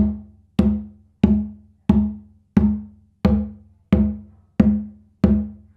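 Kpanlogo drum played with open tones, fingers held together striking near the edge of the skin head with both hands. Nine even strokes, about one every two-thirds of a second, each ringing with a clear pitch.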